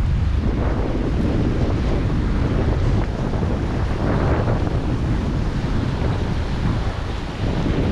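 Wind buffeting the microphone: a loud, steady low rumble with gusts.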